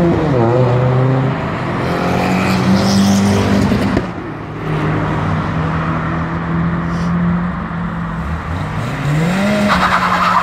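Modified cars' engines revving and accelerating as they pull away, with tyre noise; one engine rises sharply in pitch near the end.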